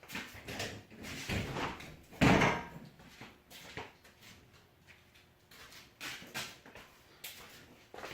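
A series of knocks and clunks from parts and tools being handled, with one heavy thud a little over two seconds in and lighter clicks after it.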